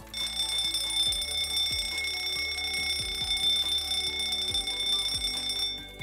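Fire alarm bell ringing continuously and loudly, about 85 dB on a sound level meter, then cutting off near the end as the system is silenced.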